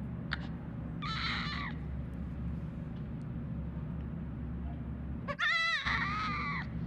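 Baby goat bleating twice: a short call about a second in, then a longer, louder, wavering bleat near the end, over a low steady hum.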